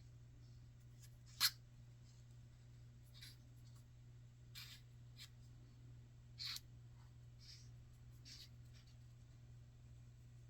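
Faint handling of a small flashlight: scattered light scrapes and ticks, with two sharper clicks about one and a half seconds and six and a half seconds in, over a steady low hum.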